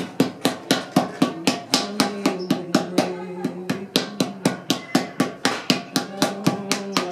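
Potter's paddle beating a leather-hard clay pot against an anvil held inside it, a fast, even run of knocks. A steady droning tone joins underneath about two seconds in.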